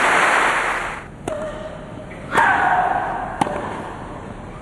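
Crowd applause dying away within the first second. Then a tennis rally on a grass court: three sharp racket-on-ball strikes about a second apart, the second followed by a player's loud, drawn-out grunt.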